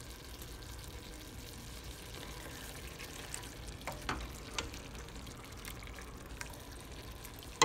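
Wooden spoon stirring chunky sausage and tomato creole in a stainless steel pot, with a few light knocks of the spoon about four seconds in and a sharper click near the end, over a steady low sizzle from the cooking pot.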